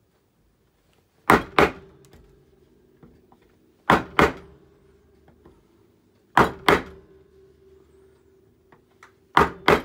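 Round wooden carving mallet striking the handle of a hand carving gouge, two quick blows at a time, four pairs about two and a half seconds apart. A faint steady hum runs underneath.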